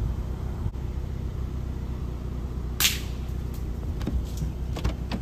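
A single shot from an FX Impact M3 pre-charged pneumatic air rifle about three seconds in, one sharp crack over a steady low background rumble.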